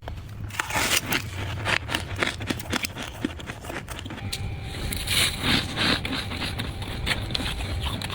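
Freezer frost being scraped: irregular rough scraping and crackling strokes of loose, powdery frost, over a steady low hum.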